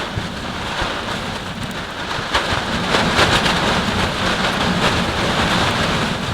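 Blizzard wind and snow beating on a canvas tent: a steady rushing noise scattered with many small ticks, a little louder through the middle.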